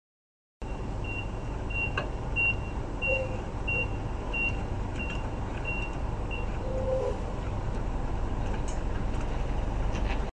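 Steady outdoor vehicle rumble, with a reversing alarm giving a row of short high beeps about one and a half times a second that stops about six seconds in. A few faint clicks are heard.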